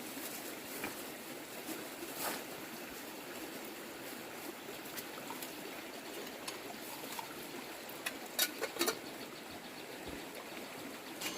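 Steady trickling water, with a few sharp clicks about eight and a half seconds in.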